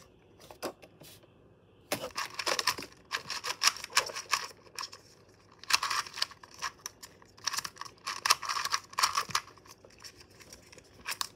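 GAN stickerless 2x2 speedcube being turned fast by hand: rapid runs of plastic clicking and clacking in bursts, starting about two seconds in, with short pauses between runs.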